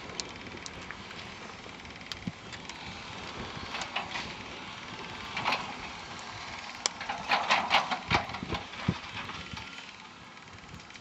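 Excavators at work: a steady running noise with scattered knocks and clanks, and a denser bout of clattering about seven to eight seconds in, like bucket and rock contact.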